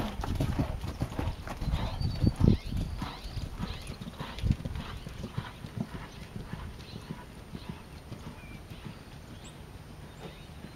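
Horse's hoofbeats on sand arena footing, a steady run of dull strikes, loud and close at first and fading as the horse moves away.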